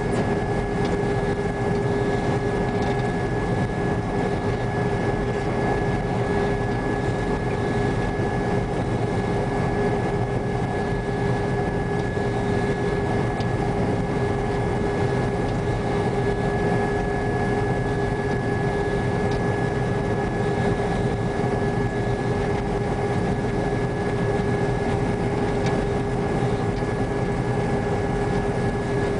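New Holland TR95 combine running steadily while harvesting, heard from inside the cab: a constant engine and machinery drone with a steady high whine over it.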